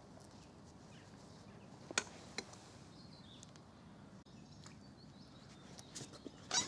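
Faint open-air ambience: a low steady hiss with a faint bird chirp, two sharp clicks about two seconds in, and a quick run of clicks near the end.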